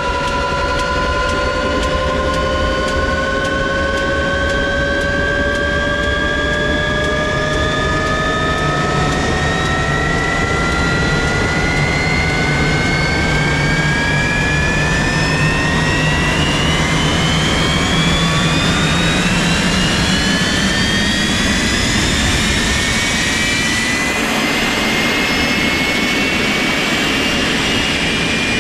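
Jet engine running at full blast, a high whine climbing slowly and steadily in pitch over a loud rushing exhaust as the engine spools up.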